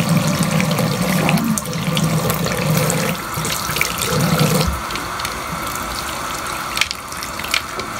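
Warm tap water running into a sink as a bleached lace closure is rinsed under it to wash out the bleach.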